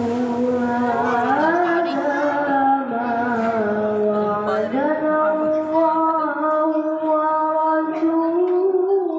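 A young boy's voice reciting the Quran in the melodic qari style, sung into a microphone. He holds long, ornamented notes that climb about a second in, drop back, and step up again about halfway through, staying high to the end.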